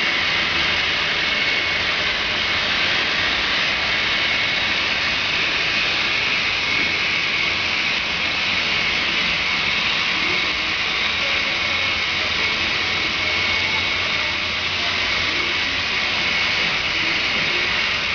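Model freight trains rolling along the layout's track: a steady rushing whir of many small wheels on rail, unchanging in level.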